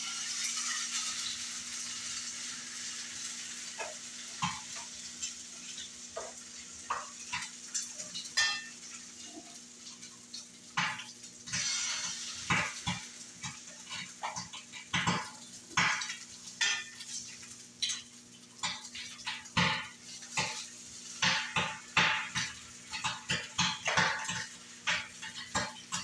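Food sizzling in a hot skillet on a gas stove, loud at first and dying down over the first several seconds. Then a utensil clinks, taps and scrapes against the pan, the strokes coming quicker in the second half.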